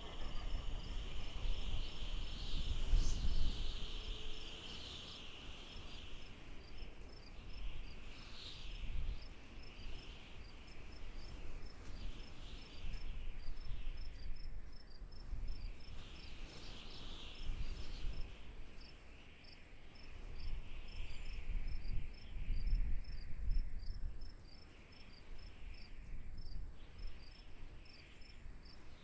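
Crickets chirping: a steady high-pitched trill with regular short chirps a few times a second, over uneven low rumbling.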